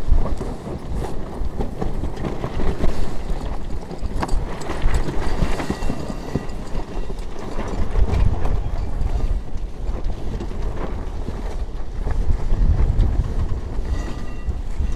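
Wind buffeting the microphone over the rush of water along the hull of a sailing yacht under way through a choppy sea.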